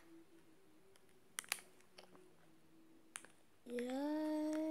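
A few faint clicks, then about three-quarters of the way in a child starts singing one long held note.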